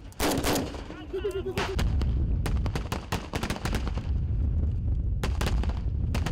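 Rifle gunfire in a live-fire drill: a few shots at first, then a quick string of shots about two and a half seconds in and more shots near the end, over a low rumble.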